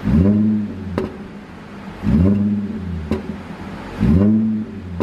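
Audi 3.0 TFSI supercharged V6 blipped three times, about two seconds apart, its pitch rising and falling back to idle each time, with a single sharp pop from the exhaust as the revs drop. This is the pop tune: a map that makes the exhaust pop on the overrun.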